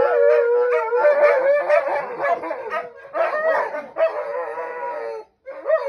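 Several dogs howling together, their overlapping howls wavering in pitch, with a brief break near the end.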